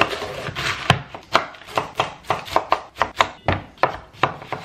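Chef's knife chopping vegetables on a wooden cutting board: a crunchy run of strokes shredding a savoy cabbage, then a steady series of sharp knocks, about four a second, as the knife slices through a cucumber to the board.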